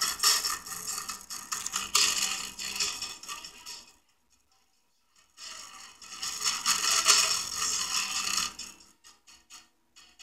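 Audio playing through a homemade speaker made from an old hard drive's head-actuator coil and neodymium magnets, with a disposable cup glued to the head arm as the resonator: a thin, tinny, rattly sound with almost no bass. It cuts out completely for about a second and a half near the middle, then resumes.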